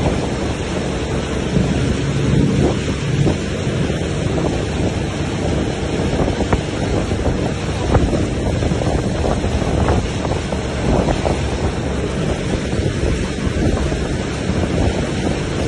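Wind buffeting the microphone over the rush of foaming water from a speeding rigid inflatable boat's wake, with the boat's motor running underneath.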